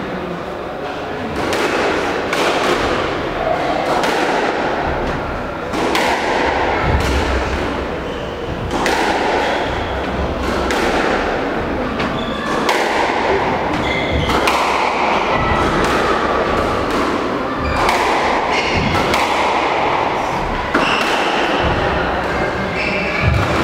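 Squash rally: the ball struck hard by rackets and smacking off the front and side walls, a sharp impact roughly every second, each with a booming echo in the hall.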